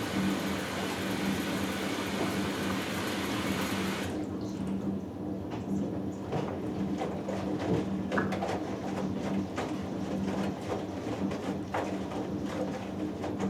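Hoover Dynamic Next washing machine filling for a cotton cycle: water hissing in through the inlet stops about four seconds in. A steady motor hum runs under it, and afterwards the drum turns the wet load with irregular splashes and soft knocks.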